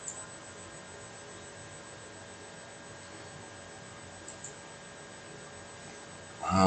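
Steady electrical hum holding several faint constant tones, with a high thin whine. A brief louder knock comes near the end.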